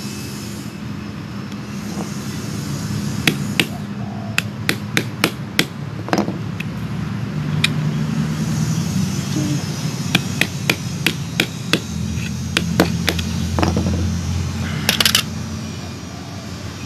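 A run of sharp clicks and taps, coming in quick groups of about three a second with a short rattling burst near the end, from pliers snipping and working lengths of nylon trimmer line. A steady low hum runs underneath.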